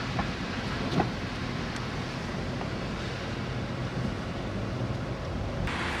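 Steady road noise inside a moving car's cabin: engine hum and tyres on a snowy highway, with a faint tap about a second in.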